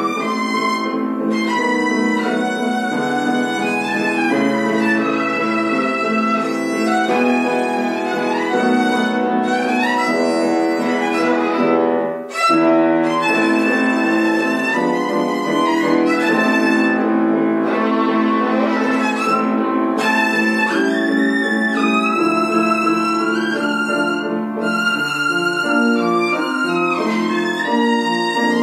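A child playing the violin with grand piano accompaniment: a continuous melodic line over steady piano chords, with one short break between phrases about twelve seconds in.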